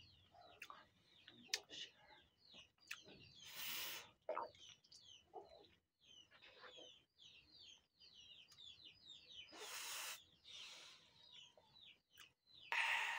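Mouth slurping and sucking on a ripe mango by hand, with loud wet sucks about four seconds in, around ten seconds, and again right at the end. Many short high chirps run throughout underneath.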